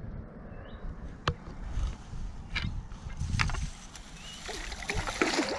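Fishing tackle and a landing net handled at the water's edge: scattered sharp clicks and knocks, with a denser splashy rustle near the end, over a low wind rumble on the microphone.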